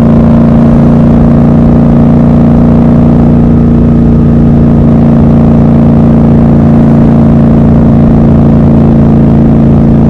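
Triumph Scrambler 1200 XC's 1200 cc parallel-twin engine and exhaust at a steady cruise, heard from the rider's seat; the engine note holds one even pitch, with no gear change or throttle blip.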